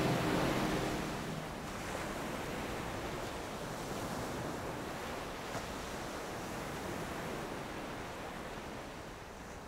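Ocean surf breaking and washing ashore, a steady rushing of waves, with the last of the music fading out about a second in.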